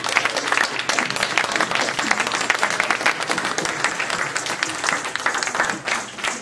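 Audience applauding with dense clapping, which thins out near the end.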